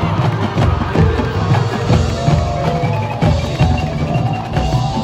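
Marching band playing, percussion to the fore: repeated drum hits and mallet keyboards, with held pitched notes stepping upward after about two seconds.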